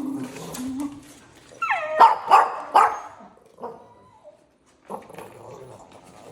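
A dog whining, then a high whine that slides down into a quick run of about three barks about two seconds in, the loudest part; softer yips and whimpers follow.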